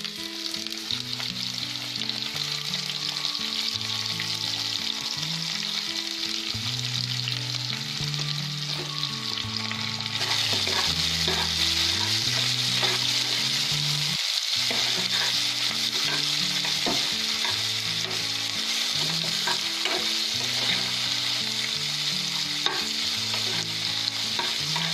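Sliced onions sizzling in hot oil with cumin seeds in a metal kadai, stirred with a metal spoon that clicks and scrapes against the pan. The sizzle steps up louder about ten seconds in.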